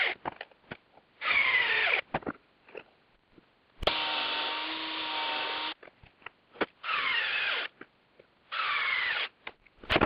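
Cordless drill/driver driving wood screws into a wooden block in short runs, the motor whine dropping in pitch as each screw bites in and tightens. One longer, steady-pitched run comes in the middle, with small clicks of handling between the runs.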